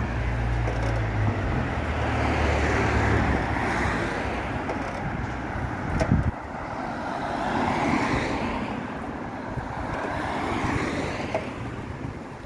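Car driving on a street: steady engine and tyre noise that swells and eases a few times, with a low hum that drops away about three seconds in and a single thump about six seconds in.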